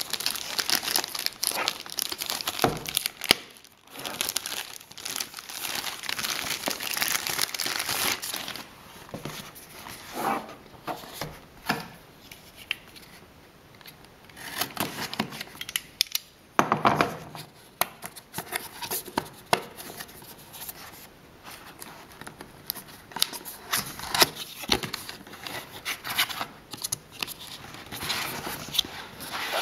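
Clear plastic bag crinkling for the first eight seconds or so as it is pulled off a cardboard box. After that come sparser scraping, clicks and rustles as a utility knife slits the box's seal and the cardboard box is opened.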